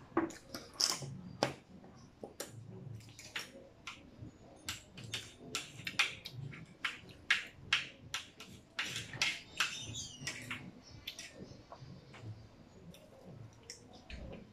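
Eating sounds from two people: chewing and wet mouth noises over spaghetti and fried chicken, with many irregular sharp clicks of plastic forks against plates and paper food boxes.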